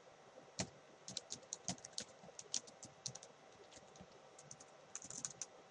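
Typing on a computer keyboard: irregular key clicks, several a second, with a quick flurry near the end, as text is entered into a form.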